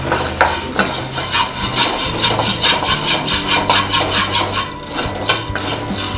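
Background music with a steady bass line. Beneath it, a metal spatula scrapes and stirs roasted gram (pottukadalai) around a stainless-steel kadai, with dry, rattling strokes as the grains are roasted.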